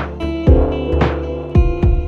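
Background music with a steady beat: low drum thumps and a sharp snare-like hit about once a second over held chords.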